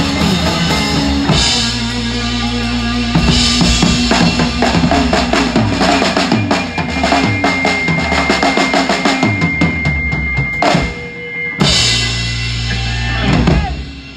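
Rock drum kit with a 26-inch bass drum played hard in a live trio over bass and guitar: fast runs of kick, snare and cymbal hits. The band drops out briefly about 11 seconds in, then comes back with big crashes and a last flurry that closes the song.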